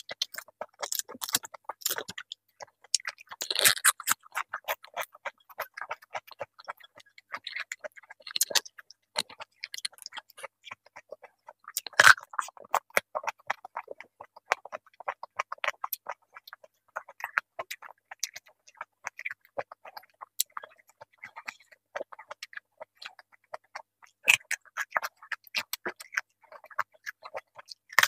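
A person chewing and crunching raw vegetables close to the microphone: a continuous run of irregular crisp crunches and mouth clicks, with louder bites about four seconds in and again about twelve seconds in.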